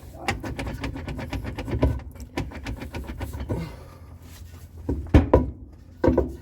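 Drive axle being worked into the transmission: a quick run of metal clicks, then several heavy knocks about five seconds in and again near the end as it is pushed and knocked home.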